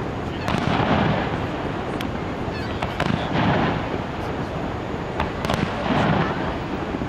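Aerial fireworks shells bursting: about half a dozen sharp bangs, with low rumbling booms swelling roughly every two to three seconds.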